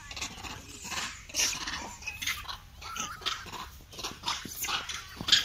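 Several monkeys caught in a wire cage trap calling, an irregular run of short, sharp calls and clicks.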